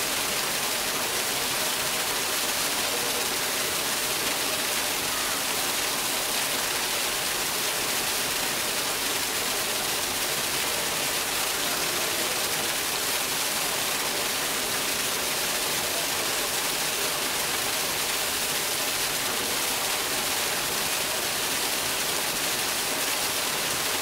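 A thin column of water falling into a pool, splashing steadily where it hits the surface.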